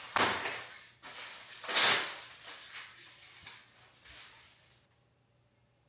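Handling noise while setting up a new tool chest: two loud swishing slides or rustles, then lighter rustling that stops about five seconds in.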